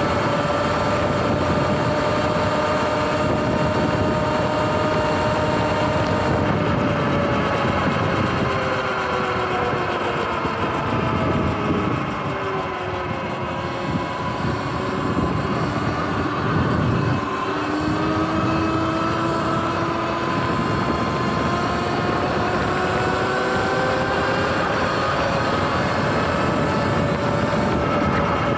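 Sur-Ron electric dirt bike's motor and drivetrain whining while riding, the whine's pitch following road speed: it sinks as the bike slows partway through, then climbs again as it speeds back up. A steady rush of wind and road noise runs underneath.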